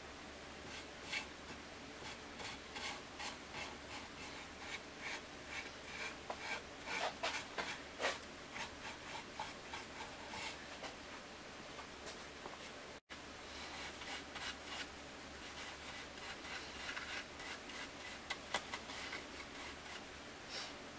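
Paintbrush bristles stroking a liquid finish onto a wooden box, a quick irregular run of soft brushing scrapes on the wood.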